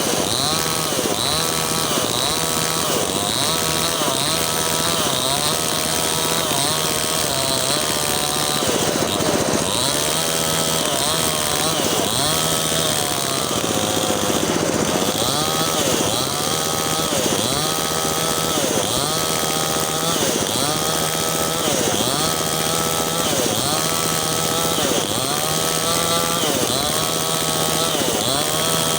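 Mini chainsaw cutting wood, running without a break, its motor pitch dipping under load and rising again about once a second.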